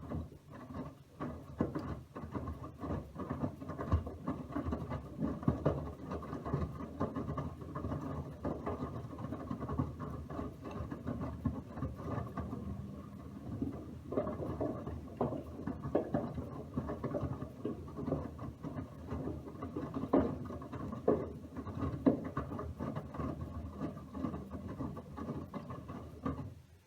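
Miele W1 front-loading washing machine's drum turning during the wash cycle, laundry and water sloshing and pattering with many small knocks over a low motor hum. It starts suddenly and stops just before the end.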